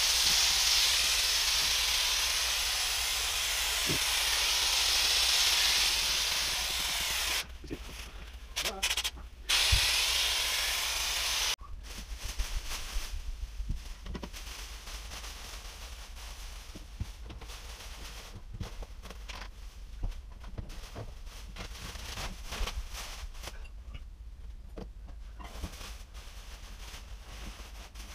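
Aerosol wall-texture spray can hissing in one long spray and then two short ones, cutting off about eleven seconds in. After that comes quieter crinkling and rustling of plastic sheeting as it is pulled down and bundled up.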